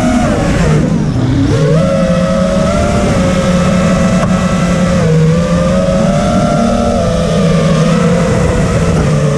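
Brushless motors and propellers of an Alien RR5 mini quadcopter on a 4S battery, whining loudly as heard from its onboard GoPro. The pitch drops as the throttle comes off about a second in, climbs back, then rises and falls a little with each punch and bank.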